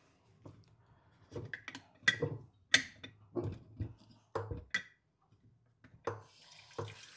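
A string of sharp knocks and clinks as a glass water-filter pitcher and its lid are handled in a stainless-steel sink. Near the end the kitchen tap is turned on and water starts running.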